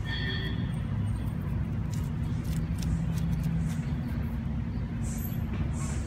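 Steady low rumble of road traffic, with a short high-pitched chirp right at the start.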